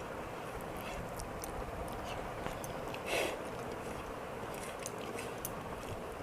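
Close-miked chewing and small wet mouth clicks of a person eating, over the steady whoosh of an electric fan. A short, louder mouth sound about three seconds in.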